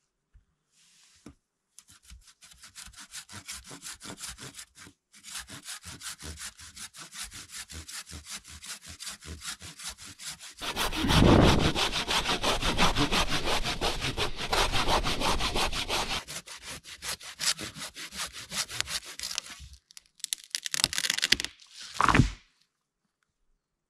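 Hand saw cutting through wood in fast, even back-and-forth strokes. The strokes get louder and heavier about halfway through, then stop. A brief, loud sound follows near the end.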